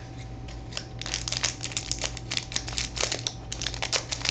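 Sealed trading-card pack wrapper being torn open and crinkled: a run of quick crackles that starts about a second in.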